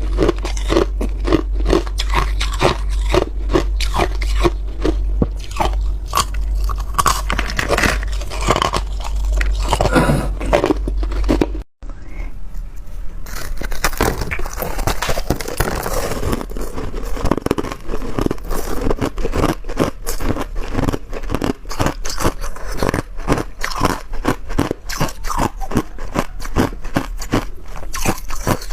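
Ice being bitten and chewed, with rapid, continuous crunching throughout. The sound cuts out briefly about twelve seconds in, then the crunching resumes.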